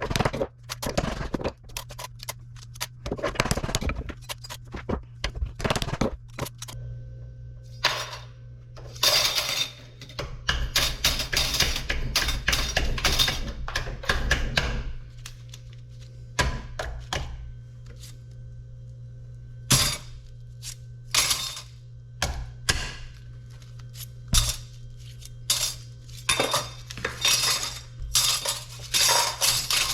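Metal scrap from small electric motors clinking, clanking and knocking as the pieces are handled, at an irregular pace with denser clatter in places. A steady low hum runs underneath.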